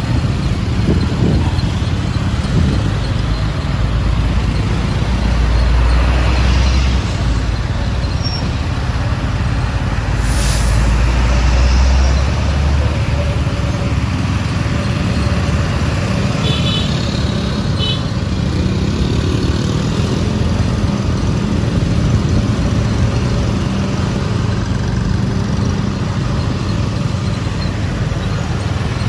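Road traffic noise dominated by a heavy vehicle's engine running, loudest in the first half, with a few faint short high beeps a little past the middle.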